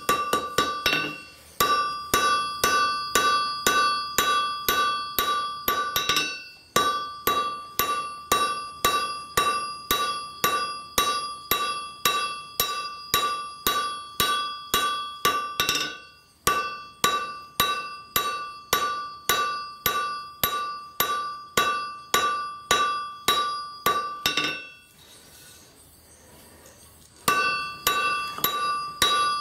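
Blacksmith's hammer striking a red-hot file on an anvil, forging it into a flint striker. The blows come in a steady rhythm of about two to three a second, each followed by the anvil's bright ring. The hammering breaks off briefly a few times and stops for about two seconds near the end before starting again.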